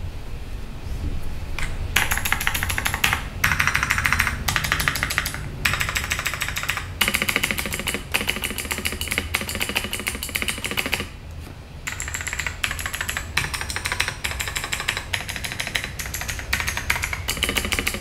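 Fast typing on an Ajazz AK820 mechanical keyboard with clicky blue switches: runs of rapid key clicks broken by short pauses, one about eleven seconds in.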